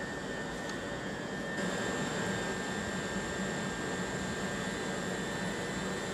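First Capital Connect electric multiple unit at the platform, its equipment giving a steady hiss with a held high whine, which steps up a little about one and a half seconds in.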